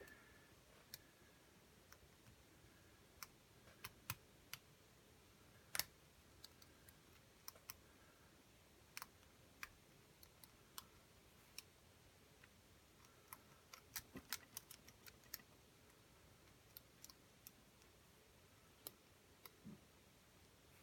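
Faint, irregular metallic clicks and ticks of a lock pick and tension wrench working the pins of a pin-tumbler challenge lock, with a quick flurry of clicks about two-thirds of the way through.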